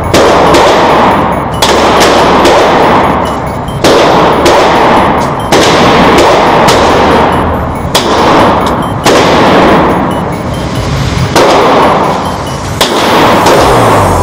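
Sig Sauer P226 9mm pistol fired in slow single shots, roughly one every one to two seconds, each sharp report followed by a long booming reverberation in the enclosed range lane.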